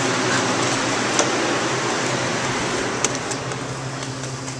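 Steady fan noise from a walk-in refrigerated cooler, with a low hum under it, growing fainter near the end. Two sharp clicks come about a second in and about three seconds in.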